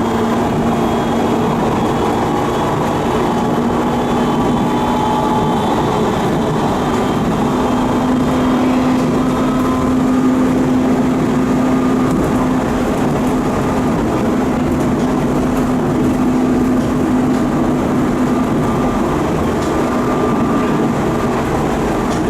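JR 719-series electric train car running, heard from inside the car, with a steady jet-like drone from its bogie over the rail and running noise; the drone grows stronger for a while mid-way. It is an abnormal noise that the uploader puts down to a worn bearing somewhere in the running gear, with play that causes knocking and vibration.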